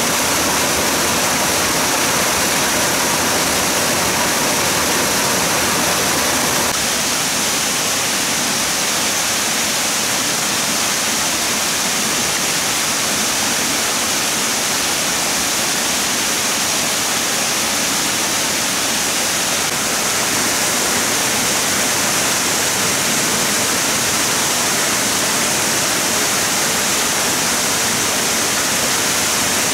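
Steady rushing of flowing water, a loud even noise with no breaks; it becomes slightly quieter and thinner in its lower part about seven seconds in.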